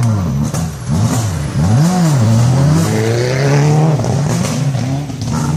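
Rally car engine revved up and down again and again, its pitch rising and falling about once a second, with a longer steadier stretch in the middle.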